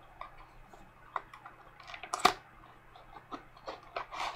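Cosmetics packaging, a boxed lip liner set, handled by hand: scattered small clicks and taps, the loudest a sharp click a little past two seconds in, with a brief rustle near the end.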